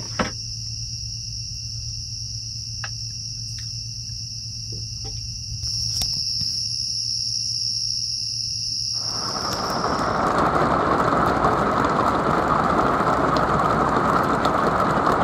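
Steady high trill of night insects over a low hum, with two quick knocks at the start. About nine seconds in, heavy rain takes over as a loud, steady rush.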